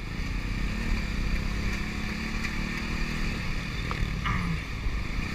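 Motorcycle engine running steadily while riding along in traffic, with wind and road rush over the microphone.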